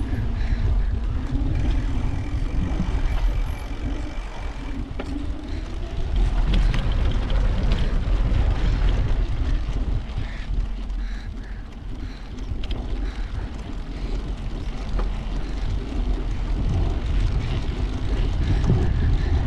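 Steady wind buffeting and rumbling on the microphone of a camera carried on a moving bicycle, with the bicycle's tyres running on a paved path.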